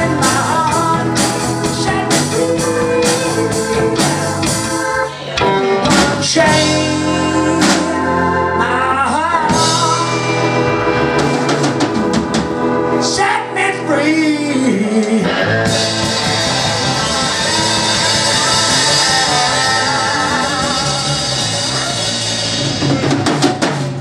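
A live rock band (Hammond keyboard, electric guitar, bass guitar and drum kit) playing. About two-thirds of the way through, cymbals start ringing over held chords, as the band builds to the song's ending.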